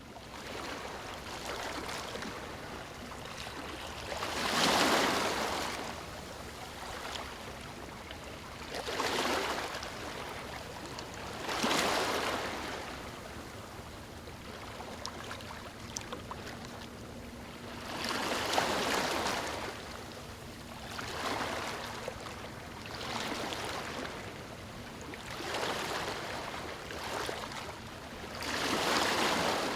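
Ocean waves breaking on a shore: a steady wash of surf with a louder wave surging in every few seconds.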